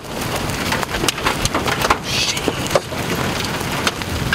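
Rain pattering on a vehicle: a steady rush of noise with a low rumble, broken by many small irregular ticks of drops.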